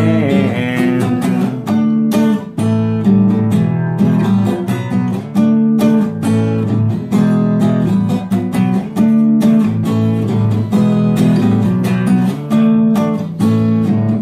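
Acoustic guitar strumming chords in a steady rhythm through an instrumental break in the song, the chords changing every second or so.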